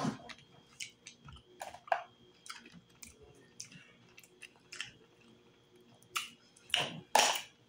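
Close-miked eating of steamed mussels and crawfish: quiet chewing and mouth noises with scattered small clicks of shells being handled, then two louder mouth sounds near the end as a mussel shell is raised to the mouth.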